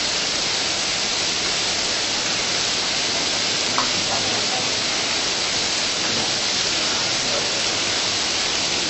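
Steady hiss, brightest in the upper range, with one faint click about four seconds in.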